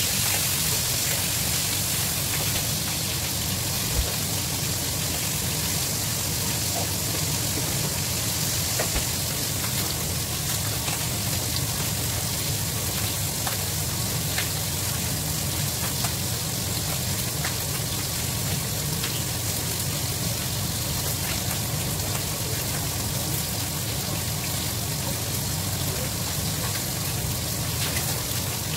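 Meat pieces frying in a frying pan on a gas stove, a steady rain-like sizzle with a steady low hum underneath and a few faint clicks.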